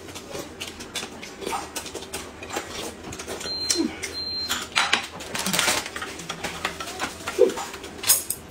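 Plastic sandwich wrappers crinkling and rustling, mixed with chewing and mouth sounds and light clinks of dishes.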